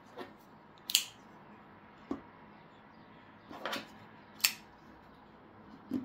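Folding pocket knives being handled and laid down on a desk mat: a few separate sharp metallic clicks, the loudest about a second in and again at about four and a half seconds, with duller knocks between them.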